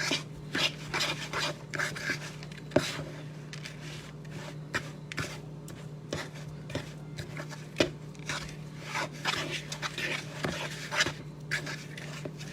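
A fork stirring oats and mashed banana in a mixing bowl: irregular scraping and rubbing strokes, with a few sharp clicks.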